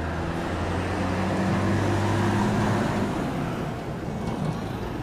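Motor vehicle engine running with a steady low hum over road noise, as heard riding aboard. It grows louder through the first half and eases off after about three seconds.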